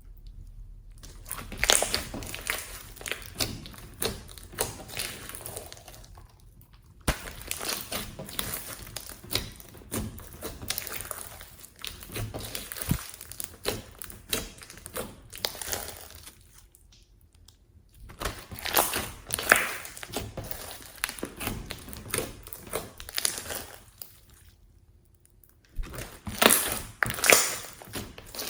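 Slime being squished and worked by hand, crackling and popping in bursts with short pauses.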